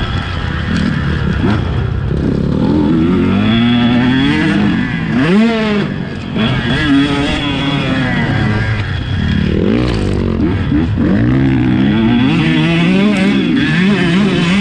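KTM 150 SX two-stroke single-cylinder motocross engine at full riding load, its revs rising and falling repeatedly through throttle and gear changes, with quick sharp rev swoops about five and ten seconds in.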